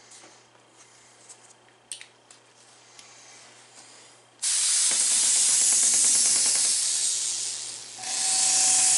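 A few faint clicks and taps, then about four and a half seconds in an airbrush starts spraying with a steady hiss, which eases briefly near the end and comes straight back. It is the freshly cleaned airbrush being sprayed out onto cardboard to clear the leftover water.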